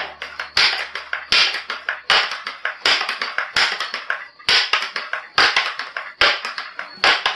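Daisy 822 .22 multi-pump pneumatic pellet rifle being pumped to charge it: the forearm pump lever is stroked open and shut about nine times, a little faster than once a second, each stroke a short rush of air and a clack.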